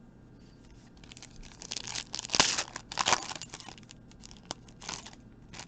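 Foil trading-card pack being torn open and its wrapper crinkling, in a string of rustling tears loudest about halfway through.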